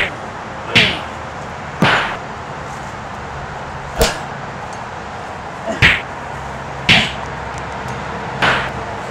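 A string of about seven short, sharp swishing hits, spaced unevenly one to two seconds apart, over a steady background hiss and low hum: fight-scene hit and swoosh sounds.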